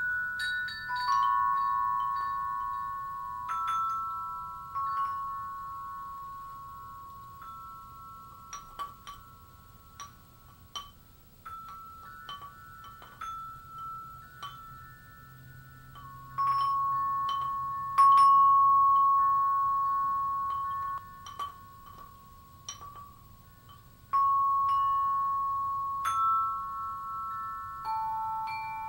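Chime music: bell-like notes struck at uneven intervals, a few at a time, each ringing on for several seconds and slowly fading, with small light ticks between. The loudest strikes come about 16 and 18 seconds in and again about 24 seconds in.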